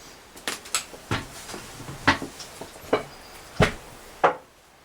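A series of sharp clicks and knocks, about seven in four seconds and uneven in spacing, from handling and fitting the metal parts of an interior door lockset.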